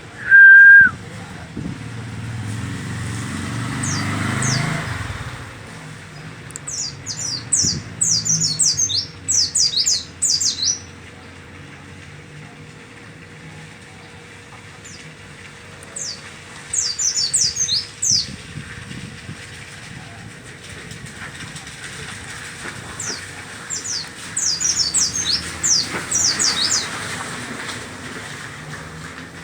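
A songbird singing in bursts of rapid, high, downward-sweeping chirps, three bursts a few seconds apart. It opens with a brief, very loud steady whistle-like tone.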